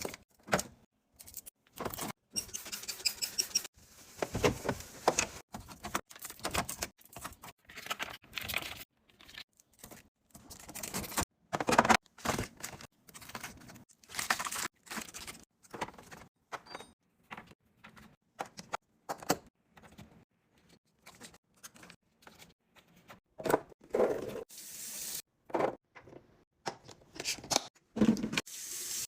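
Restocking sounds: snack packets, bottles and containers handled and set down in a fridge or snack drawer. It is a run of irregular clicks, knocks, clatters and crinkles, broken by sudden cuts to silence.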